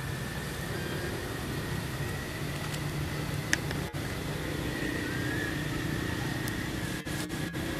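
Steady outdoor background hum and hiss with a faint, high, steady tone, and a single sharp click about three and a half seconds in; the sound briefly drops out a few times near the end.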